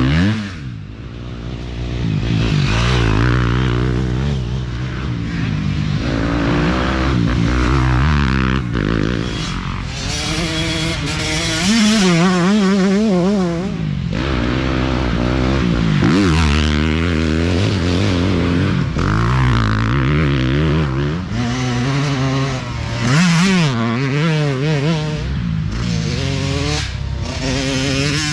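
Dirt bike engines revving and shifting as racers ride past on a dirt trail, one bike after another. The pitch keeps surging and dropping with throttle and gear changes.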